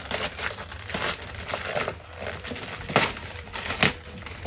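Gift wrapping paper being torn and crumpled off a present, a steady crinkling with two sharp, louder rips about three seconds in and just under a second later.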